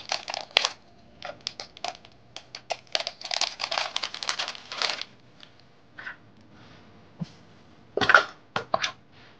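Dense crinkling and rustling as shredded cheddar cheese goes into hash browns in a plastic mixing bowl, thinning out about halfway. About eight seconds in comes a sharp clack and a few lighter knocks as plastic measuring cups are picked up.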